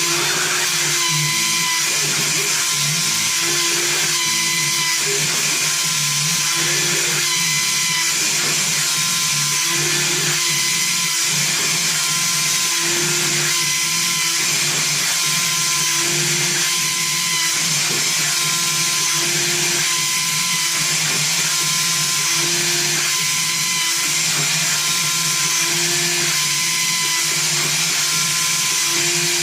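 Small CNC router spindle running at high speed and milling a wooden keycap: a steady high whine over hiss, with a lower tone recurring about every three seconds.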